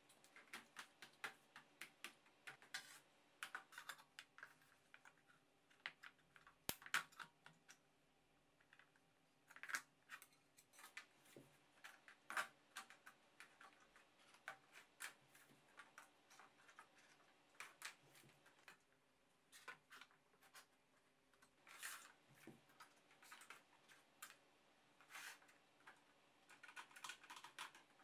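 Irregular small clicks and taps of 3D-printed plastic brackets being shifted along a wooden dowel and set against the floor, with quiet gaps between.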